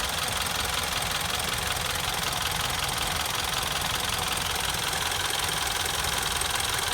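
2015 Mitsubishi Outlander SE's 2.4-litre four-cylinder engine idling steadily, with the rapid, even ticking of its fuel injectors.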